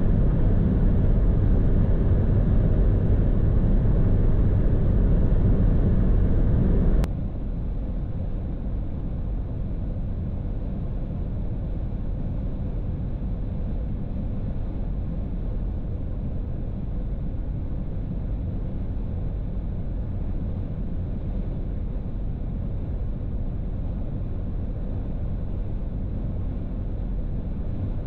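Cabin noise of a BMW 118d diesel cruising at 200 km/h: a steady rumble of road, wind and engine. About seven seconds in it cuts abruptly to the quieter, similar cabin noise of a VW Golf 8 2.0 TDI at the same speed.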